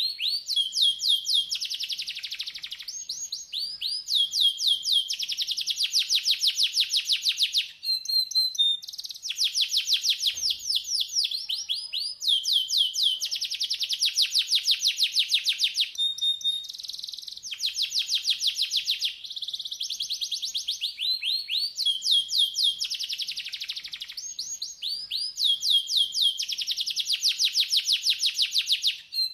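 Domestic canary singing: fast trills of repeated, downward-sweeping high notes, sung in phrases of one to four seconds, each followed by a brief break and a change to a new trill.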